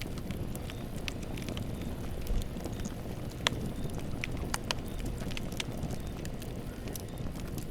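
Campfire burning: a steady low rumble of flames with irregular sharp crackles and pops of burning wood, one of the louder pops about three and a half seconds in.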